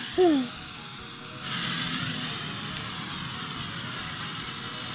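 Quadcopter drone's propellers whirring, their pitch wavering, under background music. A short, loud falling whoop sounds right at the start.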